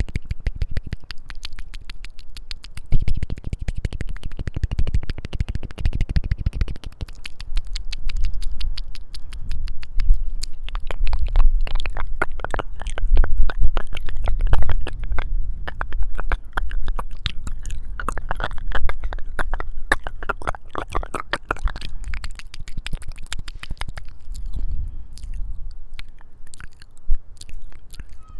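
Close-miked ASMR mouth sounds: rapid wet clicks and smacks of the lips and tongue, thinning out near the end, over a low rumble.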